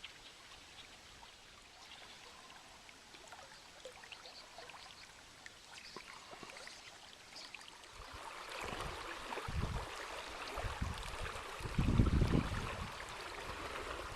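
River water running over the riverbed, faint at first and louder from about eight seconds in, with a few low thuds near the end.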